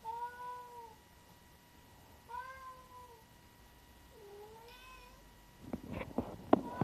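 A bicolour cat meowing three times, each meow a single arching call. Near the end come several sharp knocks in quick succession.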